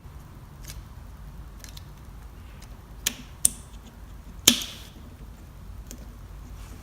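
A few sharp clicks and small taps, the loudest about four and a half seconds in: a turn signal bulb being worked into its plastic socket.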